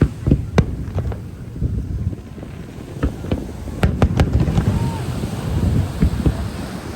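Aerial fireworks bursting in a rapid, irregular series of sharp bangs, thickest from about three to four and a half seconds in, over wind noise on the microphone.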